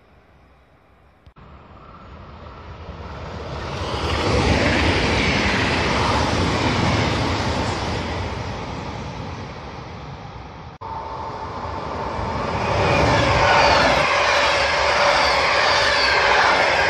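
Electric trains passing close at speed on an overhead-wire main line: a DB class 425 electric multiple unit approaches and rolls past, its wheel-on-rail noise swelling from about two seconds in. After an abrupt break near eleven seconds, a red double-deck regional train rolls past, with several steady whining tones over the rolling noise.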